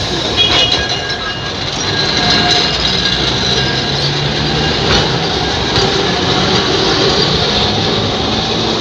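Alexandria tramcars rolling along the platform, a steady rumble of wheels on the rails that grows louder about two seconds in.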